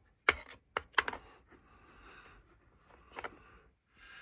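A loaded polymer magazine being handled and seated into an AR-15-type rifle's magazine well: a few sharp plastic-and-metal clicks in the first second, the loudest two about a second apart, then one more click about three seconds in.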